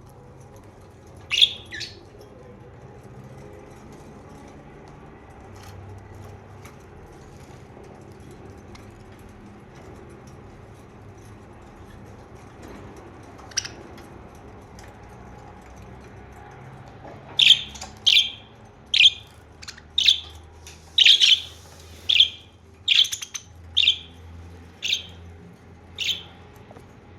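Budgerigars chirping: a couple of short, sharp chirps about a second in, a single one midway, then a run of about a dozen quick chirps in the last third.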